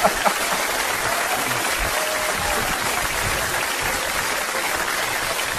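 Audience applauding, a steady wash of clapping.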